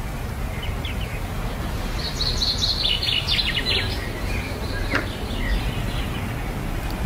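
Birds chirping over a steady low background rumble, with a quick run of repeated high chirps about two seconds in and a few single chirps around it.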